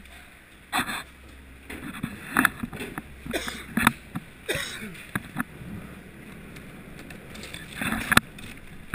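Irregular knocks, clunks and scrapes of boots and gear moving on a snow-dusted metal floor, with the sharpest knocks about a second in, near the middle and near the end.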